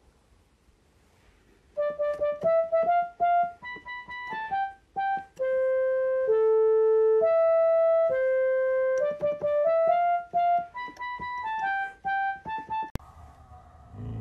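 Yamaha PortaSound PSS-170 toy keyboard playing a simple melody one note at a time, starting about two seconds in. It cuts off with a click near the end.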